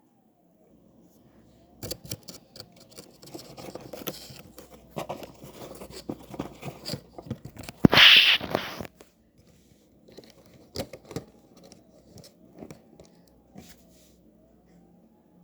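Washing machine running a wash, its motor whine rising and falling over and over as the drum turns, with clattering and rattling. A loud hissing rush lasts about a second, about eight seconds in.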